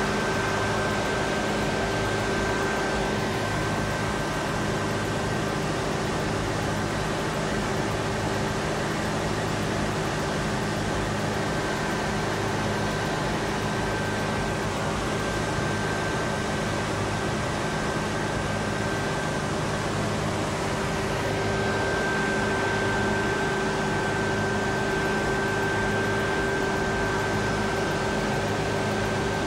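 Steady mechanical drone, like machinery or an engine heard from close by, with two steady whining tones running through it and a low hum that swells and fades slightly.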